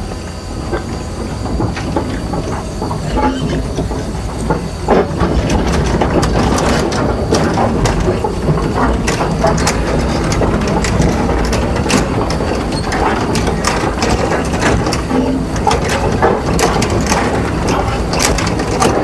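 Komatsu Avance crawler excavator travelling on its steel tracks: the diesel engine runs steadily under an irregular clanking and rattling of the track links. It grows louder about five seconds in.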